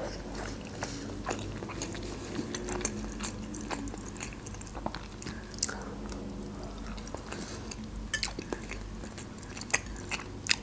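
A person chewing and biting soft stuffed cabbage rolls (golubtsy) in tomato sauce, with wet mouth sounds and scattered small sharp clicks.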